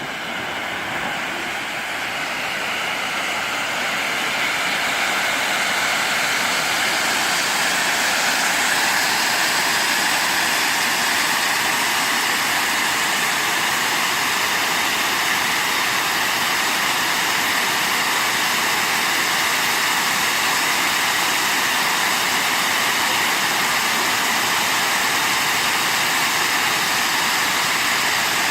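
Pyrotechnic fountains burning with a steady rushing hiss, building over the first few seconds and then holding level, with no bangs or crackles.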